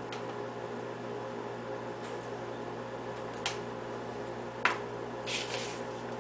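Steady mechanical hum in a small kitchen, with two sharp clicks about a second apart past the middle and a couple of short soft hisses near the end.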